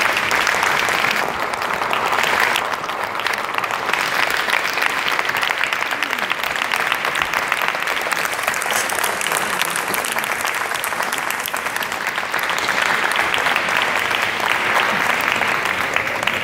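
Audience applause: dense, steady clapping from a large crowd, easing a little a few seconds in and building again near the end.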